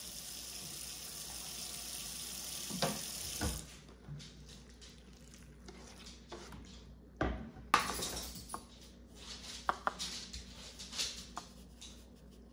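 Running water that cuts off about three and a half seconds in, then knocks and scrapes of a wooden cutting board and hands against a stainless steel mixing bowl as chopped pork liver is scraped into diced pork. The loudest are two knocks about seven and a half seconds in, followed by lighter clicks.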